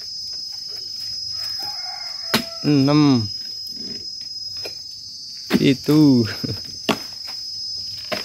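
Insects droning steadily at a high pitch, with a few sharp knocks as a dodos, an oil-palm harvesting chisel on a long pole, is jabbed into the frond bases of a palm.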